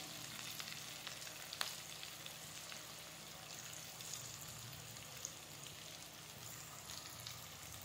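Boiled elephant foot yam (jimikand) pieces shallow-frying in oil in a kadhai: a faint, steady sizzle with a few small pops.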